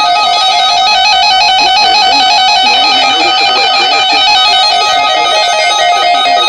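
Background music: a melody of short notes moving over two steady held tones.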